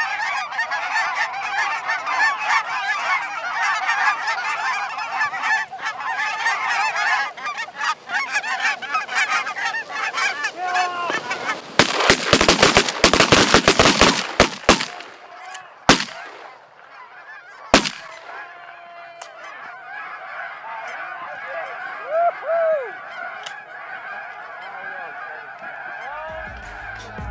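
A dense, clamouring chorus of snow geese calling, then a rapid volley of shotgun fire about halfway through, followed by two more single shots a couple of seconds apart. Fewer, fainter goose calls go on after the shooting.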